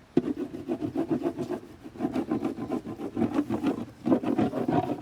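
Rapid rubbing or scraping strokes in several bursts with short pauses between them.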